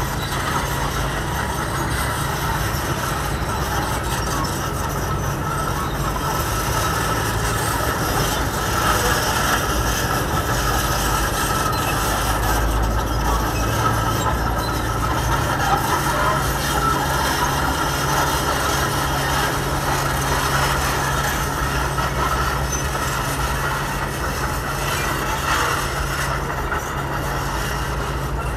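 Caterpillar 320B hydraulic excavator working, its diesel engine running steadily with a low drone as it digs.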